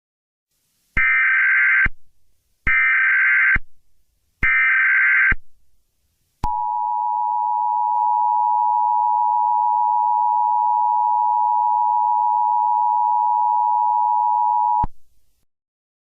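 Emergency Alert System tones: three one-second bursts of screechy SAME header data, evenly spaced, followed by the steady two-tone EAS attention signal held for about eight seconds before it cuts off.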